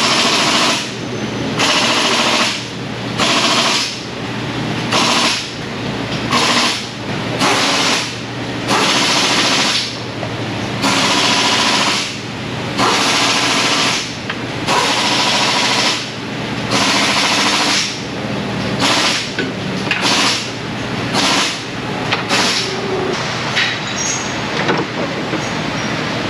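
A rattling power tool, likely an air tool, run in repeated short bursts about a second long with brief pauses, easing off near the end, over a steady low hum.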